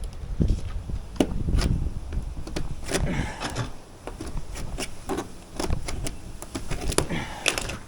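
Irregular knocks, clicks and rustling from objects being handled, with a low rumble underneath.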